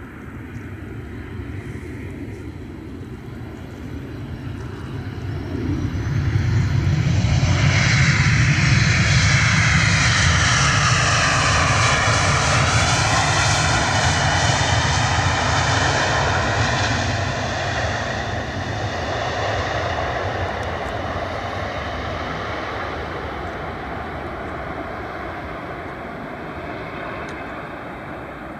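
Boeing 737-800's CFM56 jet engines on the landing rollout, spooled up in reverse thrust as the airliner passes on the runway. The engine noise swells from about six seconds in, with a high whine falling in pitch as the jet goes by, then fades slowly as it rolls away.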